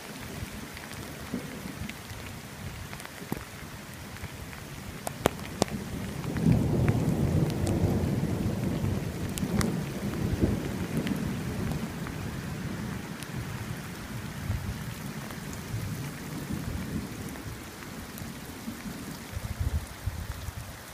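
Steady rain with occasional sharp drop ticks. About six seconds in, a long low roll of thunder builds and slowly rumbles away over the next several seconds.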